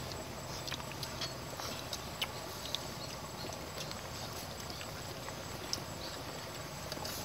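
Scattered light clicks and taps of spoons at a shared plate as people eat, over a steady outdoor hiss.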